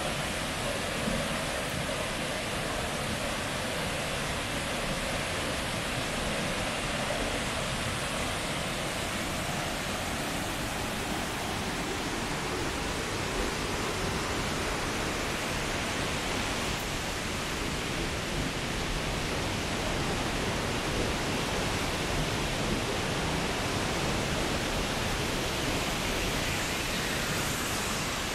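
Steady rush of a waterfall: a dense, even roar of falling water that holds level throughout.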